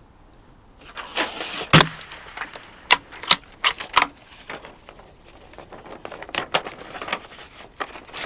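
A run of sharp metallic clicks and rattles, such as a bolt-action .22 rimfire rifle being cycled and loaded. The loudest single click comes just before two seconds in, followed by four strong clicks about a third of a second apart and then scattered lighter ones.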